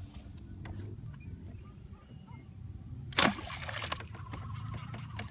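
A bowfishing shot at a carp about three seconds in: a sharp snap and splash as the arrow goes into the water, over a low steady rumble.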